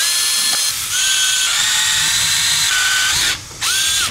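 Cordless drill with a 1/8-inch bit drilling through a metal mounting plate held in a vise: a steady motor whine that eases off briefly about a second in, stops a little after three seconds, then comes back for one short final burst.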